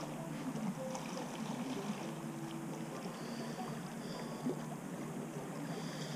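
Quiet lakeside evening ambience: a steady low hum under an even background hiss, with a few faint clicks.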